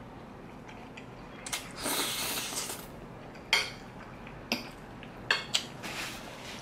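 Spaghetti being slurped in with a wet sucking hiss about one and a half seconds in, then chewing. Over the next couple of seconds a metal fork clicks sharply against the plate four or five times.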